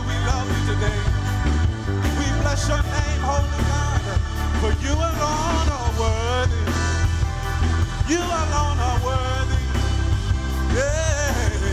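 Gospel worship song: a lead voice sings a wavering, ornamented melody over a band with a heavy, steady bass.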